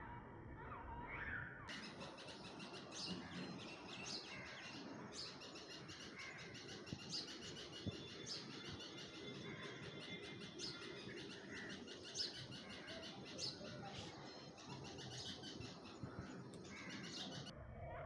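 A flock of small birds chirping, with many quick high chirps overlapping from about two seconds in until shortly before the end.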